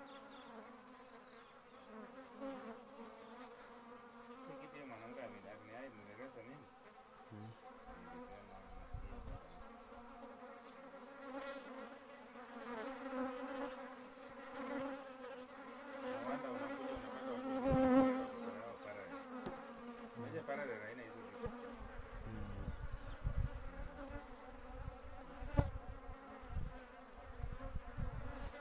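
Honeybees buzzing as they fly in close around a drinking spot, a wavering hum that swells loudest about two-thirds of the way through.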